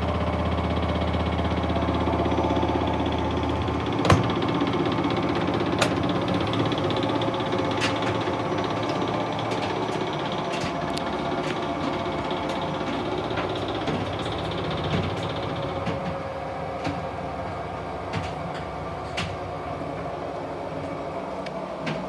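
Hotpoint TVM570 tumble dryer running, its motor and drum humming steadily with a few sharp clicks every few seconds. The lowest part of the hum drops away about four seconds in. The dryer is running with a newly fitted door lock.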